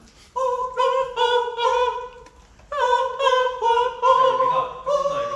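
A voice singing a high melody in long held notes, in two phrases with a short break near the middle.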